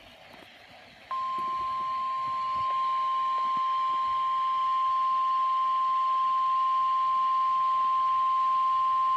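NOAA Weather Radio warning alarm tone: a single steady beep near 1 kHz (the 1050 Hz alert tone) that starts abruptly about a second in and holds without a break. It signals that a warning message is about to be broadcast. Faint radio hiss comes before it.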